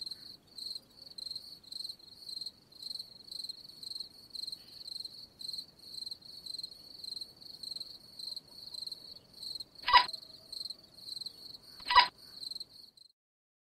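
Electronic alarm clock beeping in an even high-pitched pulse, about three beeps a second. Two sharp clicks come about two seconds apart near the end, and the beeping stops shortly after the second.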